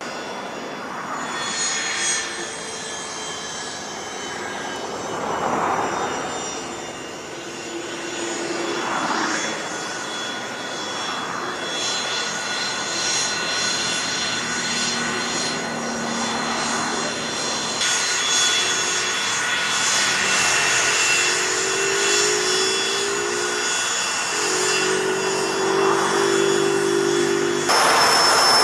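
Twin turbofan engines of a Learjet 45 business jet taxiing: a high turbine whine of steady tones over a rushing hiss. It grows louder over the stretch and jumps abruptly louder near the end.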